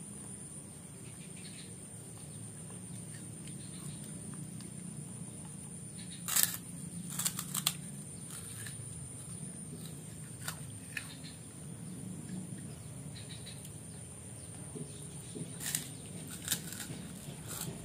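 A child biting and chewing a crisp kerupuk cracker: short sharp crunches now and then, a cluster about a third of the way in and several more near the end, over a steady low background hum.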